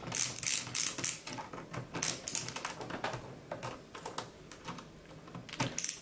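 Ratcheting screwdriver backing out the lid-lock screw on the back of a Sun SPARCserver 5, clicking about two to three times a second for the first two seconds. Then come a few fainter clicks and a soft knock near the end as the screw and lock piece come free.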